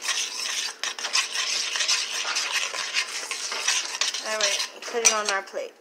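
A utensil stirring thick grits in a stainless steel pot: steady scraping and scuffing against the metal, with small clicks throughout.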